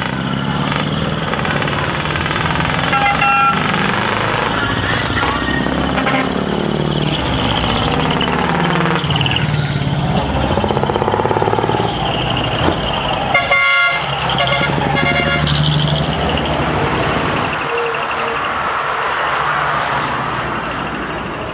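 Decorated trucks driving off with engines running, while trumpet-style air horns sound in short blasts about 3 s in and again around 14 s.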